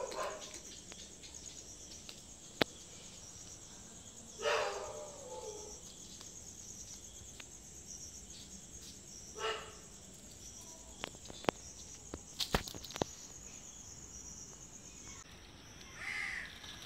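Steady high-pitched chirring of night insects such as crickets, with a drawn-out falling animal call about four and a half seconds in and a shorter one near ten seconds. A few light clicks come between eleven and thirteen seconds, and the chirring cuts off about fifteen seconds in, just before another short call.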